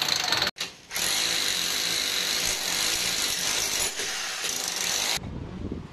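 Electric demolition hammer with a chisel bit hammering into a concrete floor, the loud, clattering "ghat ghat" of construction. It cuts out briefly about half a second in, resumes, and stops suddenly near the end.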